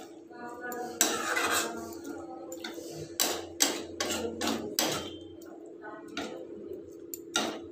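Metal spatula scraping and knocking against a metal kadai while stirring thick mutton curry: one stroke about a second in, a quick run of strokes between about three and five seconds, and one more near the end, over a steady low hum.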